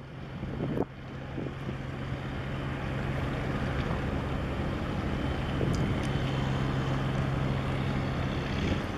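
Diesel engine of a small fishing boat motoring past, a steady low drone that grows louder over the first few seconds, over the hiss of wind and water. A gust of wind hits the microphone just before a second in.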